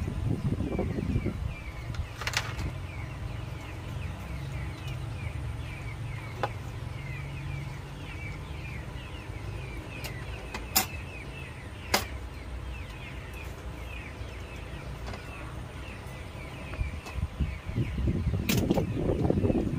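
Steamed oyster shells and spoons clicking sharply against plates about five times while the oysters are pried open and eaten, over a steady low rumble and continuous small birds chirping.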